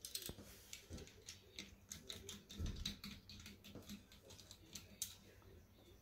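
Light metal clicks and taps as a UPVC door's multipoint lock strip is handled, with a duller knock about two and a half seconds in and a sharp click near the end.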